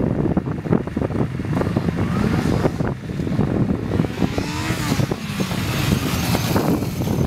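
Sport motorcycle engine revving up and down as the stunt bike rides up and passes close by.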